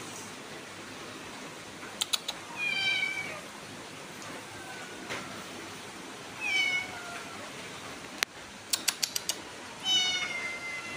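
Kitten meowing three times, each a short high call that falls a little in pitch. There are quick runs of sharp clicks about two seconds in and again just before the last meow.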